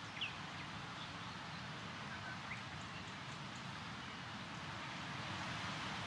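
Steady wind rustling through foliage, with a few short, scattered bird chirps; the loudest chirp comes right at the start.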